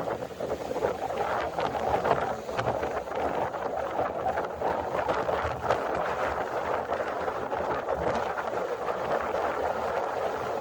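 Wind and waves at the seashore: a steady rush of noise with small irregular swells in level.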